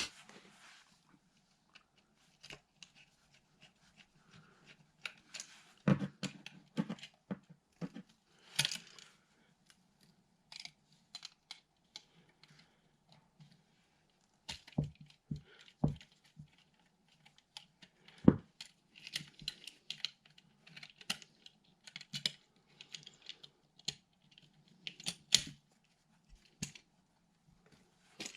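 Irregular clicks, taps and short scrapes of hand work on an old two-prong electrical outlet as it is worked loose from its wall box, with a few sharper knocks among them.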